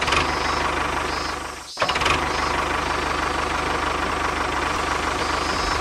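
Tractor engine running steadily with a rapid, even knock. It cuts out for a moment about 1.8 seconds in, then carries on.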